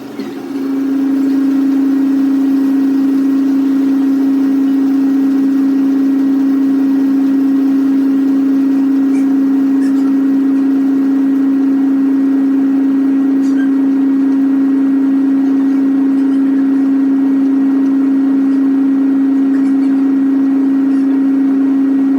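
Top-load automatic washing machine starting its spin cycle, the motor giving a loud, steady, even hum that begins about half a second in and holds one constant pitch before stopping abruptly at the end.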